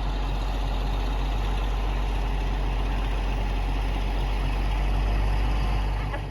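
1988 John Deere 690D-LC excavator's diesel engine idling steadily with a deep hum.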